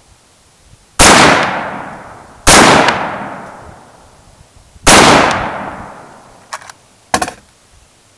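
Three rifle shots from a Smith & Wesson M&P15 AR-15 fed from a GI magazine, the second about a second and a half after the first and the third about two and a half seconds later, each followed by a long echo that dies away. Two fainter clicks come near the end.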